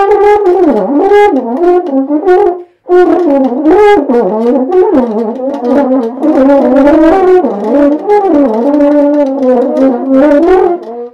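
Podcast intro music: a single melody line on a horn-like brass instrument, gliding up and down in pitch, with a short break about three seconds in.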